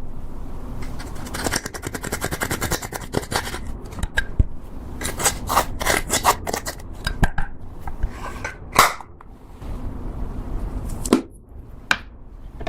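Slime being squished and folded by hand, giving runs of quick sticky clicks and crackles as air pockets pop, with a couple of louder snaps about nine and twelve seconds in.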